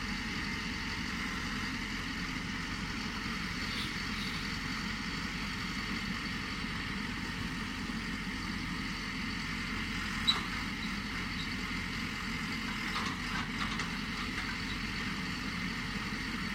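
Pile driver's engine running steadily, with no hammer blows, and one short sharp click about ten seconds in.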